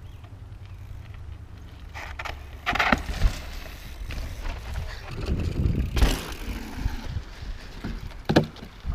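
Mountain bike ridden over a rough dirt and rock trail: tyres on dirt and the bike rattling, with irregular knocks and clatter from bumps starting about three seconds in, over a low steady rumble.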